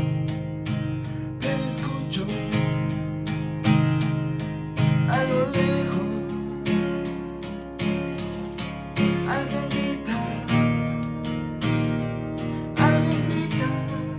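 Acoustic guitar with a capo, strummed in a steady rhythm of chords.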